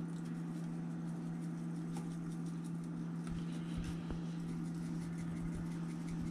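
Seasoning shaken from a small spice shaker, its grains pattering faintly onto fish fillets in a glass baking dish, over a steady low hum.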